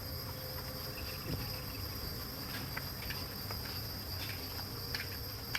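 Steady high-pitched insect chorus, crickets chirring, with a few faint clicks scattered through it.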